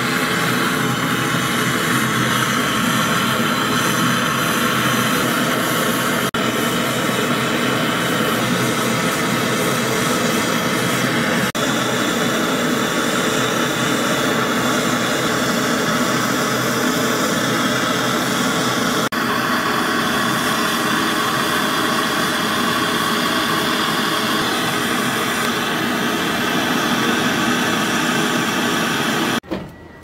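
Gas brazing torch flame hissing steadily while it heats a copper refrigerant pipe joint on a new fridge compressor. The sound cuts off sharply near the end.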